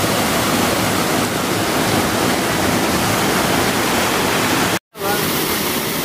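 Small waterfall pouring and splashing into its pool, heard from right beside the falling water as a loud, steady rush. The sound cuts out for a split second near the end, then the water noise resumes.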